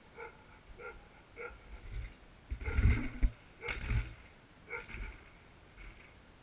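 Downhill mountain bike coming down concrete garden steps: a run of heavy thumps and rattles as the tyres drop off the steps, loudest about three seconds in and again near four seconds, then fading by five seconds.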